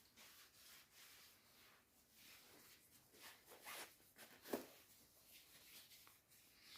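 Faint, irregular rubbing and scraping strokes, with one short light knock about four and a half seconds in.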